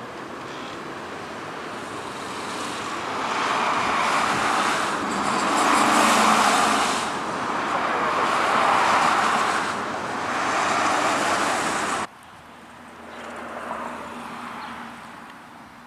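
Road traffic: several cars passing one after another, tyre and engine noise swelling and fading with each. It cuts off suddenly about twelve seconds in, and a fainter vehicle passes after that.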